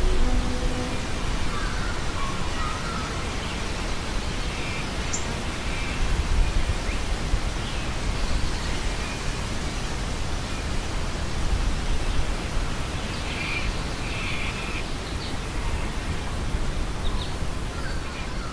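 Steady wind noise, heaviest in the low rumble, with a few faint bird calls scattered through.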